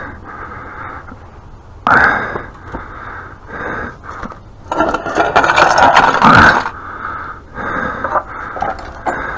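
Metal hand tools scraping and knocking on a pressure washer while a bolt is worked loose, with a sharp knock about two seconds in and a longer stretch of scraping and clatter in the middle.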